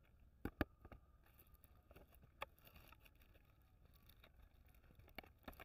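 Fingers breaking and handling crisp chocolate-coated biscuit sticks in a clear plastic tray: a few sharp snaps and clicks, the loudest a pair about half a second in, with light rustling in the middle.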